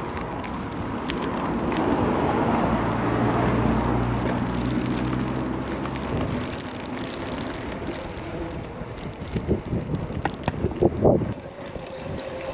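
Wind on the microphone while riding a mountain bike, as a motor vehicle's engine hum swells and fades in the first half. Near the end comes a quick series of sharp rattles and clicks.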